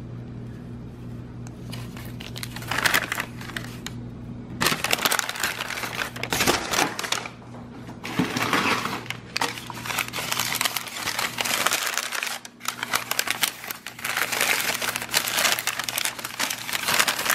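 Packing paper and plastic wrapping crinkling and rustling in irregular bursts as lab glassware is unwrapped by hand, over a faint steady hum.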